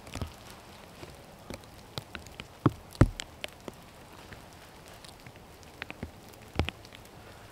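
Raindrops and drips falling irregularly close to the microphone, scattered sharp ticks over a faint background, with a few louder hits near the middle and one near the end.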